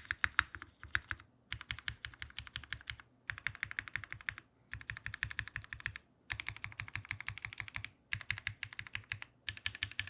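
Typing on a WKL Sirius 60% mechanical keyboard with lubed NovelKeys Cream linear switches (POM) and GMK Nines keycaps. The keystrokes come in quick runs of about a second each, with short pauses between.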